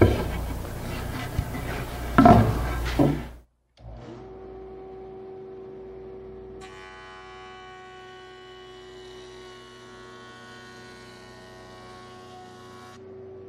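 Wood boards handled and knocked on a wooden workbench for about three seconds, then a jointer running with a steady hum. From about halfway a denser, higher whine sets in for about six seconds as a pine board is fed across the cutterhead, then stops abruptly.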